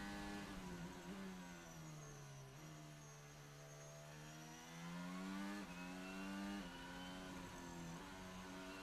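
Onboard sound of a Red Bull Formula 1 car's turbocharged V6 hybrid engine. Its note drops in steps with downshifts into a corner, then climbs again through gear changes as the car accelerates out, with a faint high whine rising over it.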